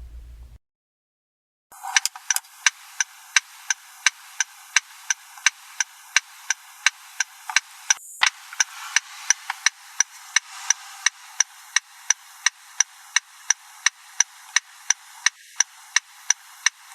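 Car turn-signal indicator ticking steadily, about three clicks a second, starting about two seconds in.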